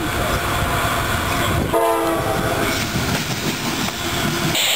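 CSX freight train approaching and passing: diesel locomotives rumbling with rattling wheels and cars. A short horn blast sounds about two seconds in.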